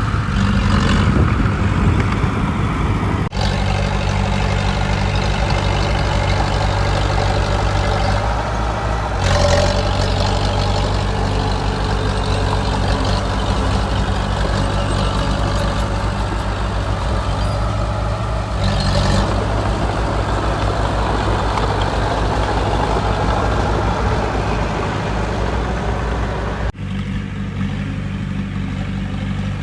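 Heavy diesel engine of earthmoving machinery running steadily under load, with short hissing bursts twice. The sound changes abruptly a few seconds in and again near the end.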